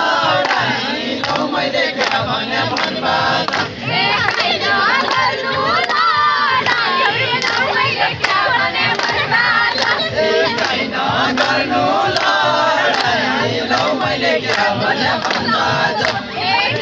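A large crowd of people shouting and calling out over one another, loud and unbroken.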